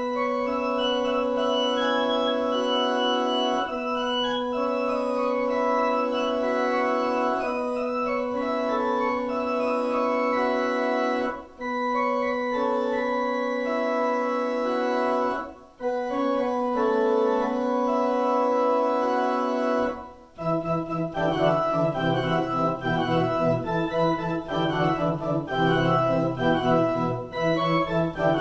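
Organ music: held chords that change every few seconds, with a few short breaks, then about two-thirds of the way in a bass line joins and the playing becomes busier with quicker notes.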